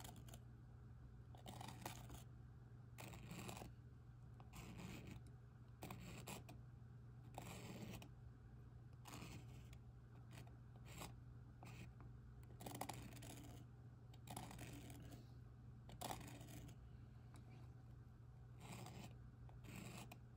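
Green felt-tip marker scratching faintly across a small stretched canvas in short, irregular strokes as a flower stem and leaves are drawn, over a low steady hum.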